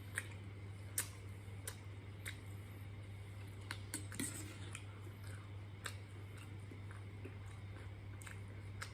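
Person chewing crispy fried pork close to the microphone: sharp, crisp crunches at irregular intervals, the loudest about a second in, over a steady low hum.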